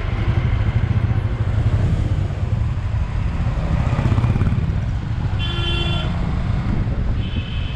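Bajaj Avenger 220's single-cylinder engine running steadily under way, with a vehicle horn tooting briefly twice in the second half.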